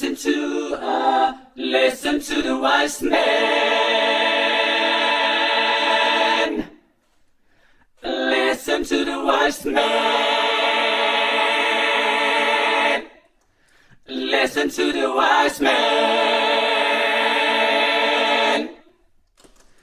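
Layered a cappella vocal harmonies, like a choir: three phrases, each a few quick notes ending in a long held chord, with short pauses between.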